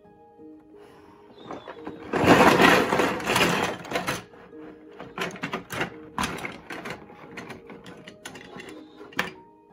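Plastic LEGO DUPLO pieces tipped out of their cardboard box: a rattling, sliding clatter lasting about two seconds, then a few scattered clicks and knocks as the pieces settle.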